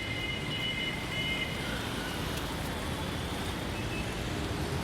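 Steady urban traffic noise, a low even rumble of passing road vehicles on a city street.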